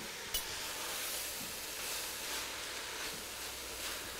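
Red cabbage and onions sizzling in duck fat in an enamelled cast-iron pot as they are briefly sweated, a steady light hiss. One short knock near the start.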